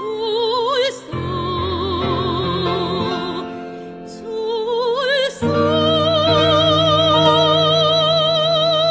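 A soprano sings a Korean art song in a classical operatic style with wide vibrato, over a steady instrumental accompaniment. Short phrases sweep up into notes, then a long high note is held from about halfway through until it cuts off near the end.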